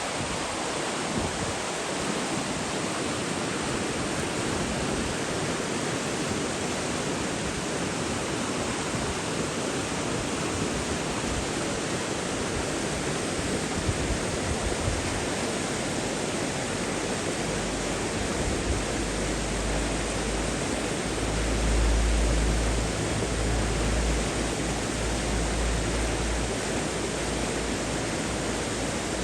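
Rushing water, a steady, even hiss of flowing water with no breaks. A deeper low rumble joins in over the second half and swells briefly around two-thirds of the way through.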